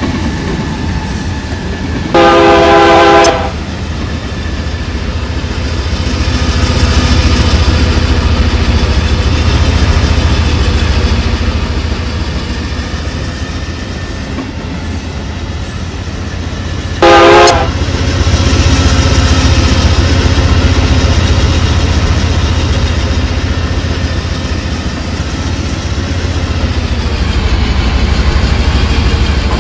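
A train rolling past with a steady rumble of wheels on rail. Its locomotive horn sounds twice: a blast of about a second near the start and a shorter one about halfway through.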